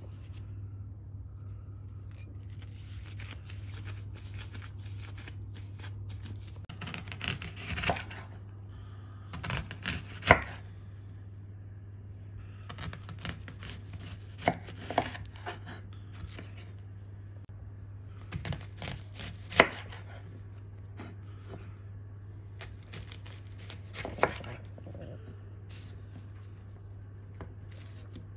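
Kitchen knife slicing red onion and tomatoes on a wooden chopping board: sharp knocks of the blade against the board in short runs, a few strikes much louder than the rest. A steady low hum runs underneath.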